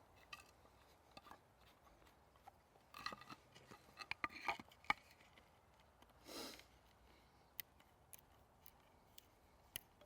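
Near silence broken by faint scattered clicks and small scrapes of hand work on wood, with a short soft rush about six seconds in.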